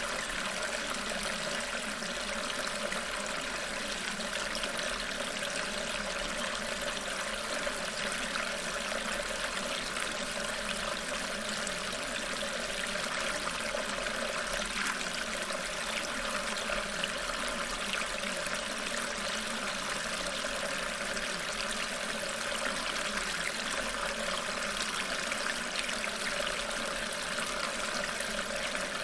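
Steady, even sound of flowing water, like a running stream.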